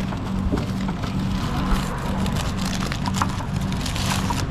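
Paper burger wrapper crinkling and rustling as it is opened, over a steady low mechanical hum and rumble that pulses evenly.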